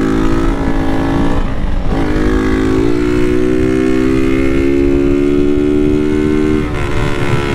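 Single-cylinder engine of a Honda CG 160 motorcycle being ridden through a loud, modified Toruna exhaust. The pitch dips about two seconds in, then climbs steadily under acceleration for several seconds before dropping near the end as the throttle is eased or a gear changed.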